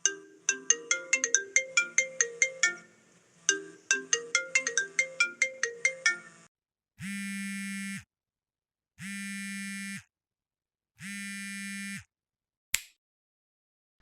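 Phone ringtone: a short plinking melody of quick notes played twice, then three one-second buzzing tones a second apart, and a single click near the end.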